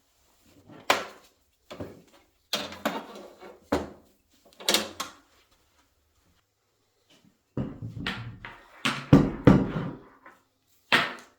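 A series of short knocks and clunks, like things being handled, shut or set down. A few come singly over the first half, then after a short quiet a busier run of heavier clunks follows.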